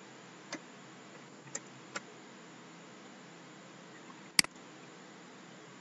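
Computer mouse clicks over a steady low hiss: three faint clicks in the first two seconds, then one much louder, sharper click a little after four seconds.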